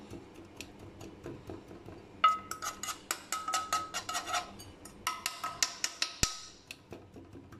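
Metal spoon clinking and scraping against a non-stick frying pan while pressing shredded kunafa dough into shape. A quick run of sharp clinks with a ringing ping starts about two seconds in, pauses briefly, then comes back in a second run that stops just after six seconds.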